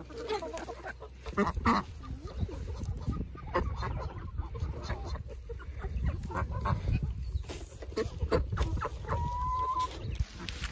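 Backyard flock of chickens clucking and calling while feeding, with a few ducks among them. One call about nine seconds in is a longer held note, and there is a low rumble underneath.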